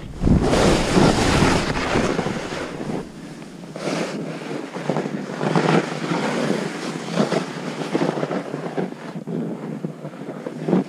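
Snowboard scraping and skidding through chopped-up, churned snow in a series of turns, each turn a surge of noise, the biggest about half a second in. Wind buffets the microphone throughout.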